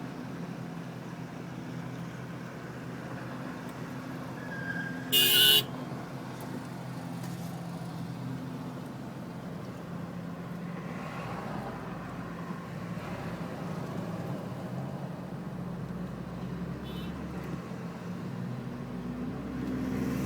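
A vehicle engine running steadily, with one short, loud horn blast about five seconds in.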